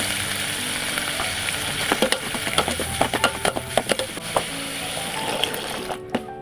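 Food sizzling as it fries in a pan, with a utensil clicking and knocking against the pan while it is stirred. The sizzle cuts off near the end.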